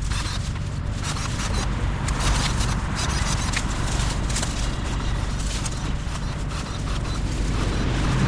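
Shrub branches being cut with hand loppers and pulled from a bush: irregular snips, snaps and leaf rustling over a steady low hum.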